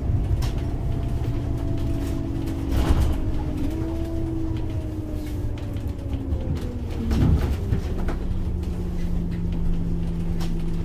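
Scania OmniLink three-axle bus with a biodiesel engine, heard from inside the cabin: a low rumble with a whine that slowly falls in pitch over several seconds, with two short knocks about three and seven seconds in. A steady low hum takes over near the end.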